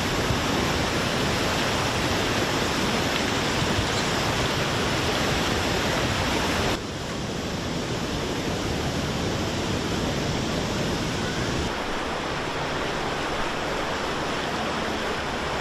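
Fast-flowing floodwater rushing, a loud steady noise. It drops abruptly in level about seven seconds in and changes again near twelve seconds, as the footage cuts between shots.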